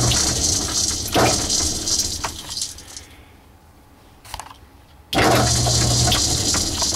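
Metal lathe running and driving a tap into a brass fitting of a carburetor, with the scraping noise of the tap cutting threads. The lathe stops about three seconds in and starts again about two seconds later.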